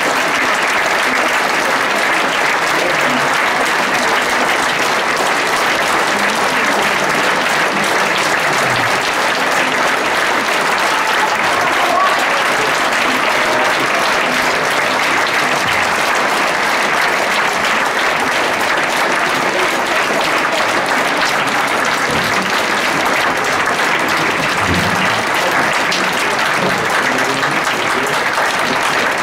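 Audience applauding, a dense, steady clapping that runs on unbroken.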